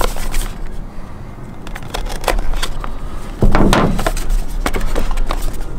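A small cardboard product box being handled and opened by hand: scattered clicks, scrapes and rustles of card and packaging. About three and a half seconds in comes a single louder, dull burst of noise, lasting about half a second.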